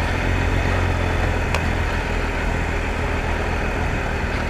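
Triumph Explorer adventure motorcycle's three-cylinder engine running at steady low revs on the move, with one short click about a second and a half in.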